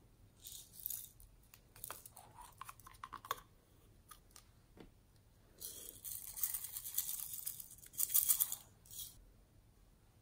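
Small plastic container handled and opened with a run of light clicks, then tipped so its small dry contents shake out onto slime in a longer hissing, rattling pour that is loudest near the end.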